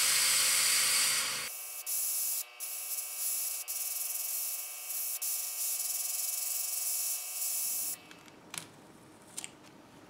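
Airbrush spraying paint: a steady hiss of air that, after about a second and a half, takes on a faint whistling tone, then stops near the end, followed by a couple of faint clicks.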